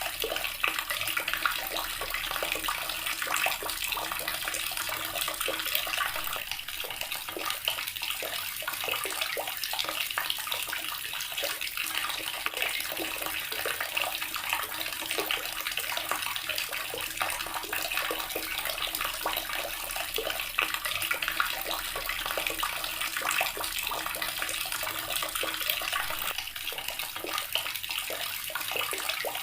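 Water running steadily from a tap and splashing into the basin below, a constant hiss with many small patters and splashes.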